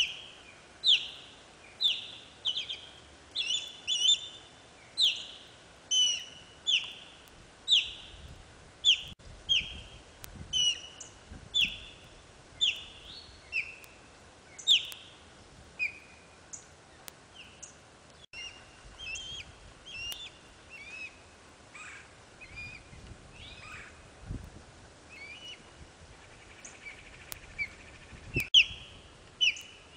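Osprey calling: a long series of sharp, high, downslurred whistled chirps, about one a second, fainter and more scattered in the middle and louder again near the end.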